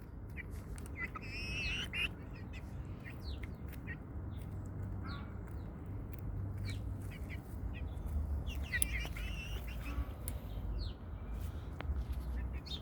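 Young chickens giving short scattered chirps, with two longer warbling trills, one a second or so in and one past the middle, over a low steady rumble.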